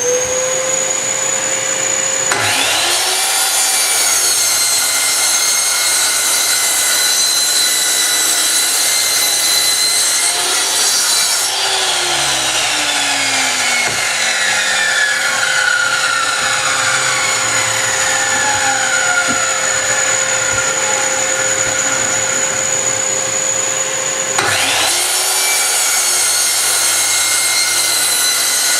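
Electric miter saw running with a steady high whine, its blade cutting through wood in two long passes: the first from about two seconds in to about eleven seconds, the second starting about three quarters of the way through. The motor keeps running between the cuts.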